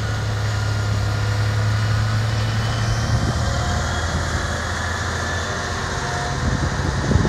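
Truck-mounted rotary snowblower's engine running steadily with a low hum as it cuts and throws snow, turning rougher near the end.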